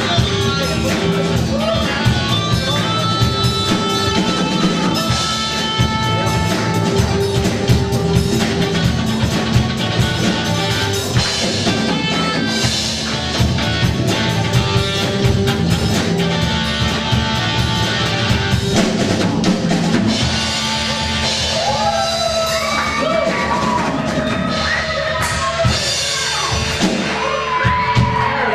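Live rock band playing a song with drum kit, guitars and keyboard, and singing. In the last several seconds voices rise over the music as it winds down.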